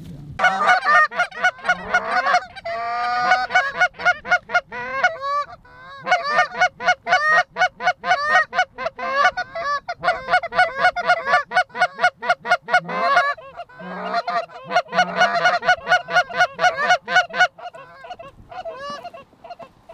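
Goose honking and clucking in fast, overlapping runs of about four to five honks a second, in three long stretches that fade away near the end.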